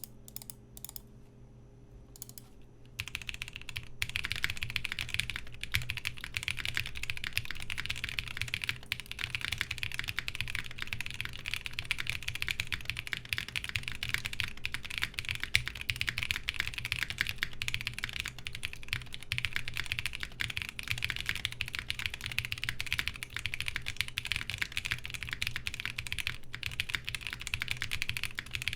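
Typing on a 7V mechanical keyboard fitted with Salmon tactile switches lubed with Carbon GS2: a few single keystrokes, then about three seconds in, fast continuous typing of clicking, clacking keystrokes.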